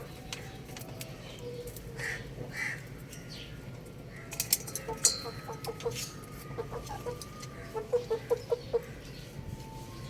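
Young rooster clucking: a quick series of short clucks in the second half, with a few sharp clicks just before them, over a steady low background hum.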